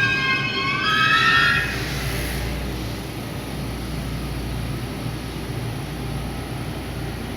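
JR West 223 series electric train drawing away: its traction motor whine climbs in pitch for the first second or two, then gives way to a steady running rumble.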